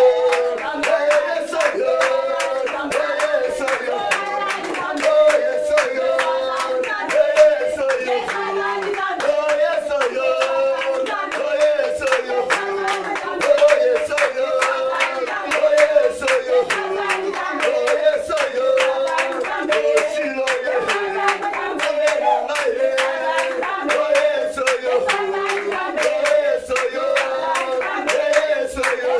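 Congregation singing a repeating praise song in unison, with steady rhythmic hand clapping throughout.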